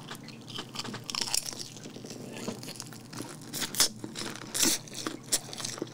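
Crunching and chewing on a crisp-battered fried chicken wing close to a microphone: a scatter of sharp crunches, the loudest a little under four seconds in.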